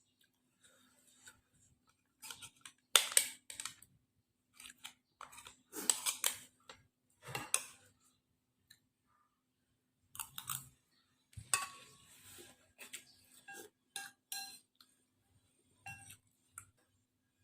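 Cutlery clinking and scraping against a bowl of noodle soup during eating, with chewing. The clinks are short and scattered, some ringing briefly, and the loudest come about three and six seconds in.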